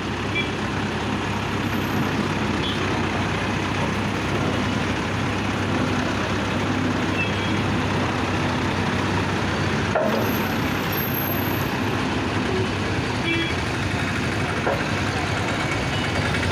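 Diesel engine of a road roller running steadily during GSP rolling.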